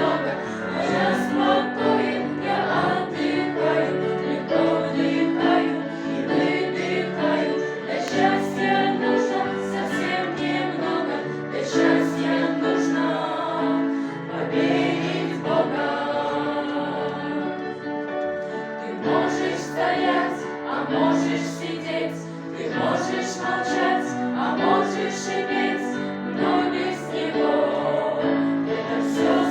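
A choir singing a song, many voices together on held, shifting chords.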